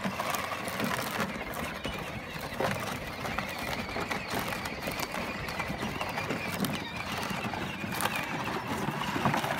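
Children's battery-powered ride-on toy ATV driving over rough, brushy dirt: its hard plastic wheels rattle and crunch with irregular small knocks.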